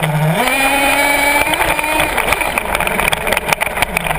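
HPI Savage RC monster truck's engine heard from on board the truck: idling, revving up just after the start and holding, then running rough and choppy with rattling knocks as the truck bounces along, and dropping back to idle near the end.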